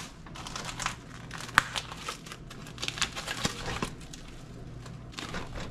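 Plastic meat packaging crinkling and tearing as a pack of ground pork or chorizo is opened and emptied, with a sharp click about one and a half seconds in.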